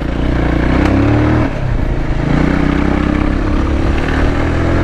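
Voge 300 Rally motorcycle engine under way, revs rising, easing off briefly about a second and a half in, then climbing again as it pulls out.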